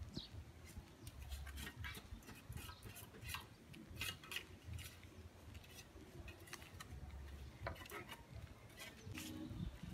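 Footsteps of sandals on a paved street: a string of faint, irregular clicks and slaps, a couple a second, over a low rumble.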